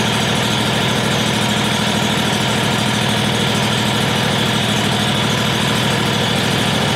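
Predator 670cc 22 hp V-twin engine running steadily with no exhaust fitted, freshly started on the bench, with a deep tone.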